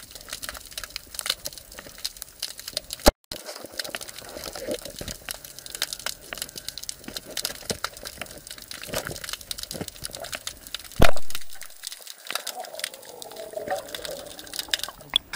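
Underwater crackling and clicking picked up through a waterproof action-camera housing, with a loud knock about eleven seconds in.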